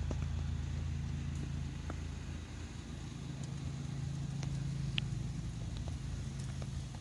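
An engine running steadily at low speed, a low hum with a few faint clicks over it.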